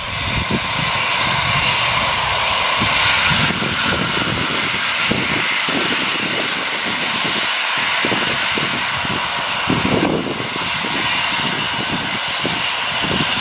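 Peppercorn A1 steam locomotive 60163 Tornado with a loud, steady roar of steam and uneven low thumps beneath it.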